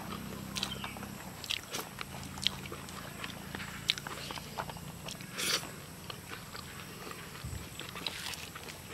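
A person eating rice and pork curry by hand: chewing and mouth noises with scattered short, sharp clicks, and a longer burst of noise about five and a half seconds in.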